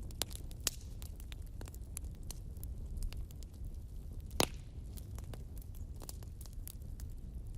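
Wood fire burning in a fireplace: irregular crackling of the logs over a low steady rumble of the flames, with one louder pop about four and a half seconds in.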